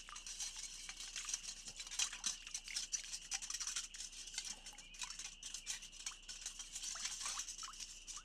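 Dishes being scrubbed: a quick, uneven run of short scrubbing strokes.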